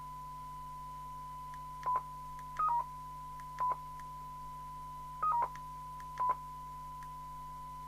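Jopix GS-60 CB radio beeping at its key presses: five short beeps, two of them a quick falling two-note pair, over a steady test tone, the signal generator's modulation heard through the radio's speaker.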